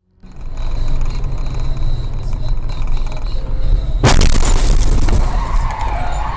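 A car's steady low road rumble, then about four seconds in a sudden loud crash impact, followed by continued loud vehicle noise with a wavering higher sound near the end.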